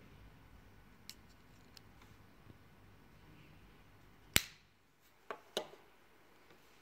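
2019 Apple AirPods charging case being handled: a few faint clicks, then a sharp snap about four seconds in as the magnetic lid shuts, followed a second later by two quieter knocks as the case is set down on the table.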